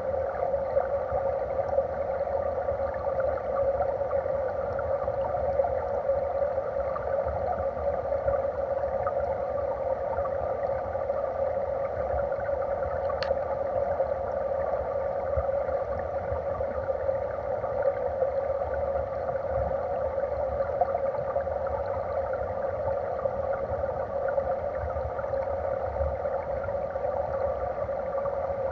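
Steady rush of stream current heard underwater through a submerged camera, muffled and crackling, with one faint tick about thirteen seconds in.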